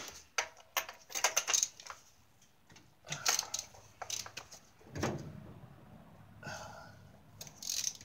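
Metal tools clicking and clinking against the engine head, with two short hisses of aerosol penetrating oil sprayed down a spark plug well to free a stuck spark plug.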